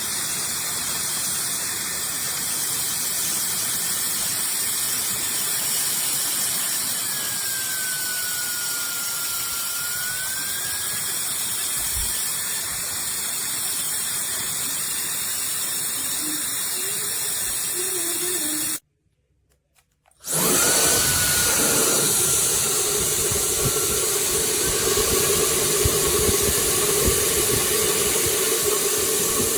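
SUPGALIY 1500 W mini ionic travel hair dryer running with a steady rush of air and a faint motor whine. About two-thirds of the way through it cuts out for a moment, then starts again with a rising whine and runs louder.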